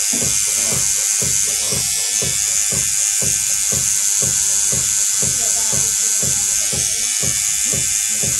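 Rotary tattoo machine buzzing steadily as its needle inks the skin, with a regular low pulsing of about three beats a second under the buzz.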